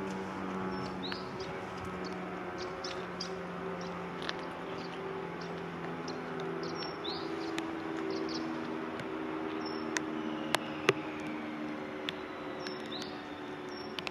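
Street ambience: a running engine's steady hum that shifts slowly in pitch, a few short bird chirps, and scattered sharp clicks.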